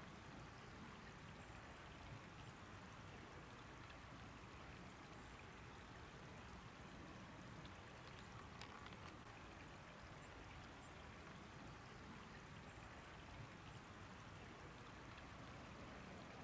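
Faint, steady wash of flowing floodwater, close to near silence.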